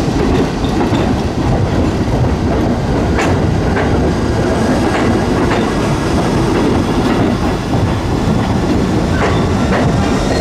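R68 subway train passing close by: a loud, steady rumble of the cars running on the track. The wheels clack over rail joints now and then in pairs.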